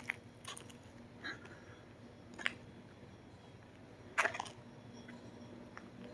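Faint room tone with a low steady hum and a few scattered short clicks, the loudest about two and a half seconds in and a small cluster of them a little after four seconds.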